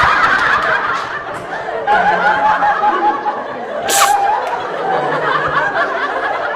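Laughter, giggling and chuckling, with one short sharp burst about four seconds in.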